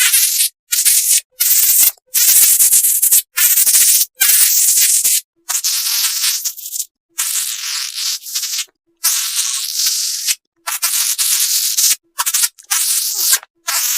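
A string of airy, hissing fart sounds, about a dozen short bursts of half a second to a second and a half each, cut one after another with abrupt silences between them.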